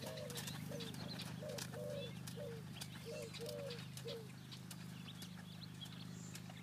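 A bird calling a short falling note about twice a second, stopping about four seconds in, over a steady low hum.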